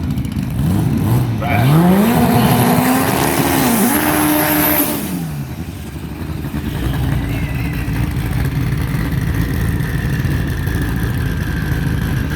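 Car engine revving up hard, holding high revs for about two seconds, then dropping away as the car pulls off down the drag strip. A steady lower engine rumble follows.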